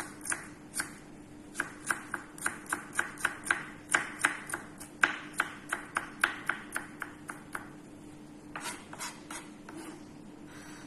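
Kitchen knife mincing garlic on a wooden cutting board: quick blade knocks on the board, about three to four a second, pausing briefly and then a few more before they stop near the end.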